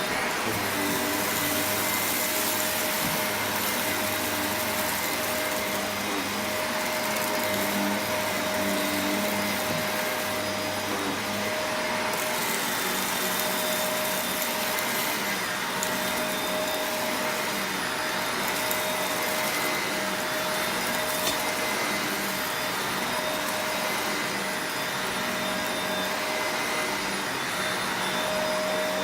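Shark Rotator Professional Lift-Away upright vacuum running steadily, a constant motor whine over the rush of air being sucked in. Its tone shifts slightly about twelve seconds in, as the hiss at the top thins out.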